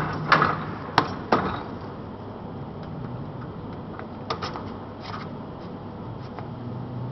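Sharp metallic knocks and clicks from sheet-metal pipe being worked in a corrugated-elbow bending machine: three within the first second and a half, a few more around the middle, over a low steady hum.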